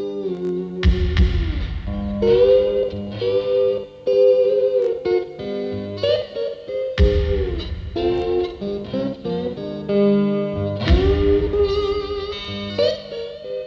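Guitar-led title music with bending notes, and a few heavy low hits that land several seconds apart.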